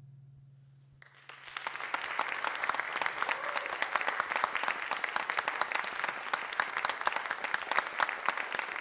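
The last low note of a brass and percussion ensemble's final chord dies away in the hall's reverberation, then about a second in an audience starts applauding, with steady, dense clapping.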